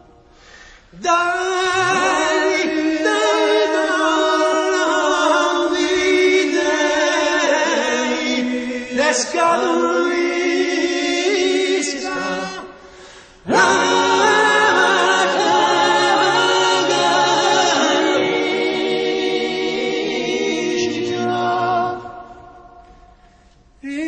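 A choir singing unaccompanied, in two long phrases: it comes in about a second in, breaks off briefly around the middle, and fades out near the end.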